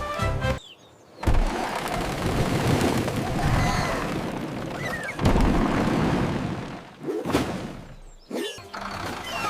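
Sound effects: a sudden boom about a second in, followed by a dense noisy rumble, with a second boom about five seconds in.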